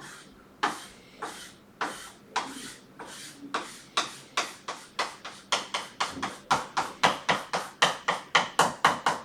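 Back-and-forth scribbling strokes of a coloured pen shading in a region of a Venn diagram, slow at first and quickening to about four strokes a second.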